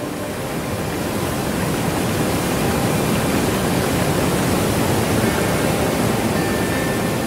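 Steady rushing roar of a waterfall that swells slowly and eases off near the end, with faint background music showing through it.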